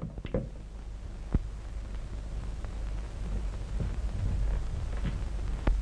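Steady hiss and low hum of an early-1930s optical film soundtrack, with a few sharp clicks. Just after the start, a telephone receiver is set down in its cradle with a click.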